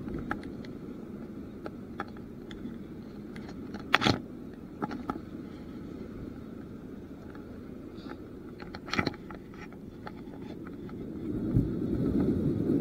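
Steady low rumble of wind and sea on an action camera's microphone, with a few sharp knocks and clicks from hands handling the fishing rod and spinning reel, the loudest about four seconds in and again about nine seconds in. The rumble grows louder near the end.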